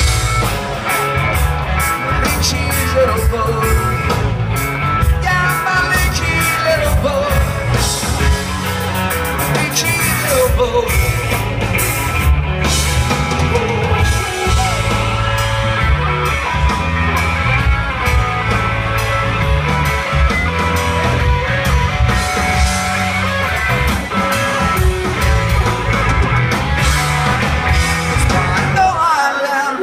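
Live rock band playing a song, loud and steady, with the low end dropping out for a moment near the end.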